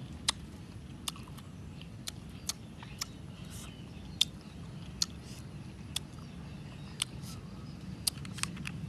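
Close-up eating sounds: sharp mouth clicks and smacks of a man chewing and biting grilled food, about a dozen at irregular intervals of roughly a second, over a steady low hum.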